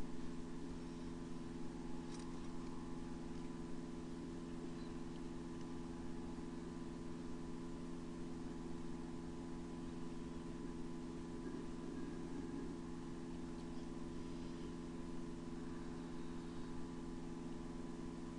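Steady low hum made of several even tones, with a faint single click about two seconds in.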